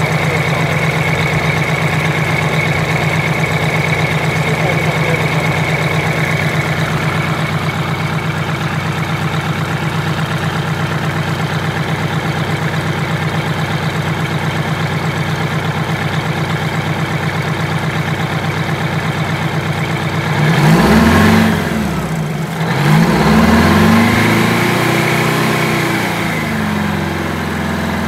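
GM Scenicruiser bus's rear-mounted diesel engine idling steadily, then revved twice near the end, the pitch rising and falling back each time.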